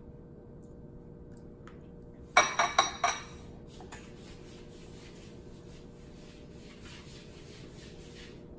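Cutlery clinking against a bowl or dish: a quick run of about five sharp, ringing clinks a couple of seconds in, followed by soft rubbing and scraping as strawberries are picked out.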